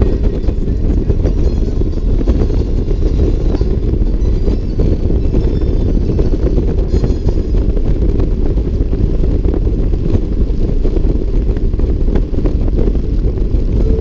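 Touring motorcycle riding at highway speed: steady, loud wind rush buffeting the bike-mounted microphone, mixed with the engine running at a constant cruise.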